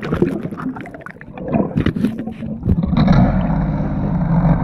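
Water splashing and sloshing around the microphone, then, about three seconds in, a steady muffled rumble as the camera goes under water.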